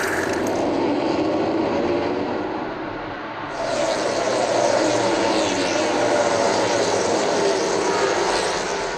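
MotoGP racing motorcycles. For the first few seconds there is a noisy rush as a crashed bike slides through a gravel trap. About three and a half seconds in, louder high-revving MotoGP engines take over, their pitch rising and falling as a group of bikes accelerates.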